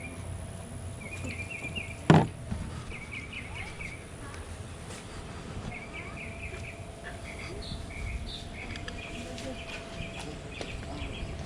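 Small birds chirping in short, repeated trills, with a single sharp knock about two seconds in.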